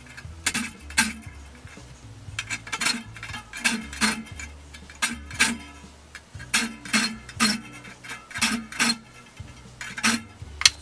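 A hand file rasping across the teeth of a frame crosscut saw's steel blade held in a saw vise, filing every other tooth. The strokes come in short pairs, two pushes per tooth, about once a second.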